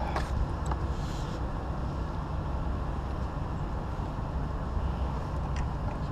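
Boat engine running steadily with a low hum, with a few faint clicks and knocks.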